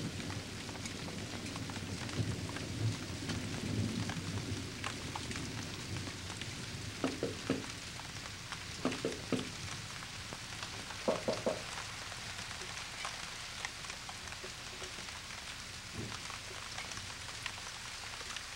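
Steady rain hiss with a low thunder rumble dying away over the first few seconds, and a few short, soft knocks scattered through it.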